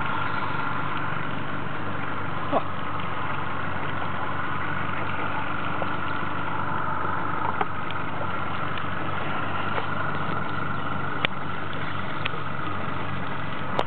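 Boat engine idling steadily, with a few short clicks over it.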